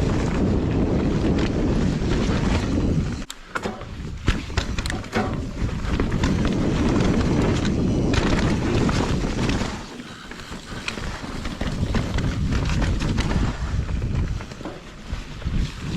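Santa Cruz Nomad mountain bike riding a dirt jump trail: wind buffeting the microphone and tyres rumbling over dirt, with rattling clicks and knocks from the bike. The rumble drops away sharply about three seconds in, again near ten seconds, and briefly near the end.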